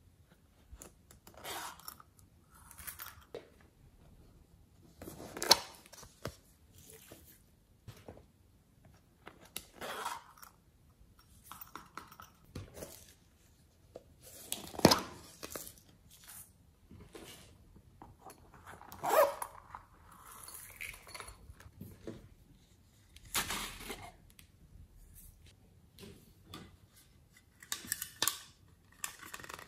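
Hard plastic novelty containers handled and opened by hand: scattered clicks, snaps and scrapes of plastic lids and cases, each a second or less, with quiet gaps between.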